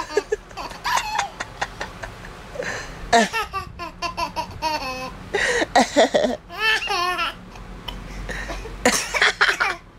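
A toddler laughing in a string of short bursts separated by brief pauses.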